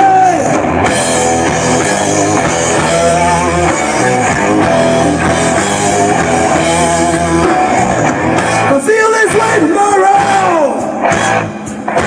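Rock band playing live through a PA: electric guitars and a drum kit, with a voice singing over part of it.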